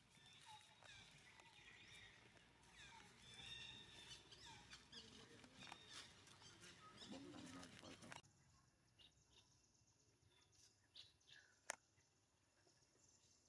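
Faint, high, chirping animal calls over quiet outdoor ambience. They stop abruptly about eight seconds in, leaving a few faint clicks and one sharp tick.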